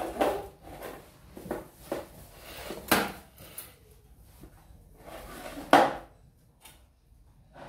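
Dishes and utensils clattering as they are handled and set down: a string of sharp knocks and clinks, the loudest at the very start, about three seconds in and near six seconds.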